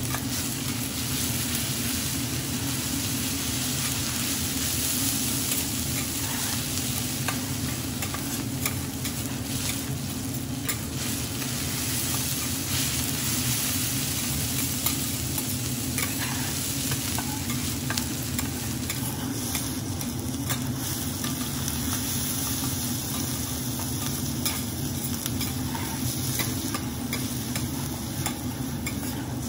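Fried rice sizzling in fat on a flat teppanyaki griddle, with metal spatulas scraping and tapping against the hot plate as the rice is spread and gathered, giving a steady hiss broken by frequent short clicks.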